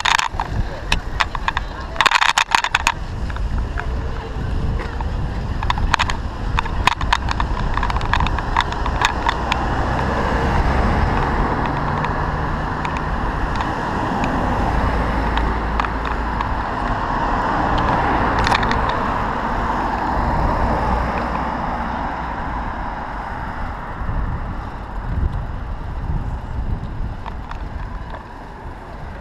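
Riding a bicycle along a city bike lane beside car traffic: steady rumble and road noise, with the bike rattling in quick clicks over bumps in the first few seconds and again around six to nine seconds in.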